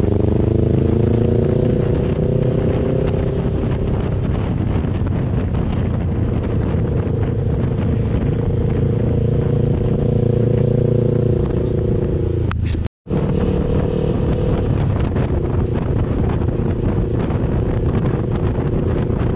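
Motorcycle engine running at a steady cruise over wind noise on the microphone, its pitch rising in the first couple of seconds and then holding steady. The sound cuts out for an instant about two-thirds of the way through, then carries on.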